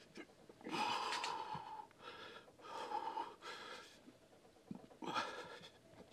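A person breathing hard in a series of long, gasping breaths with short pauses between them.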